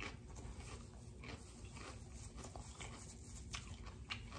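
A person chewing a mouthful of raw fruit and vegetables, with faint, irregular crunches and mouth clicks.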